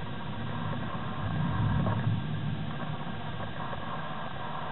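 Thunder rumbling deep and low, swelling to its loudest about two seconds in and then dying away.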